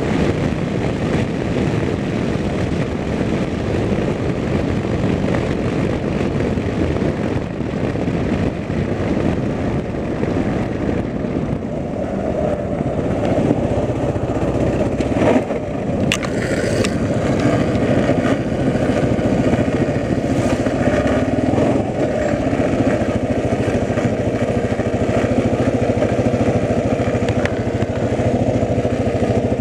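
Motorcycle being ridden at speed: the engine runs under heavy wind and road noise. About twelve seconds in it slows, and its steady low engine note comes through more plainly as it rolls along slowly, with a brief click a little past halfway.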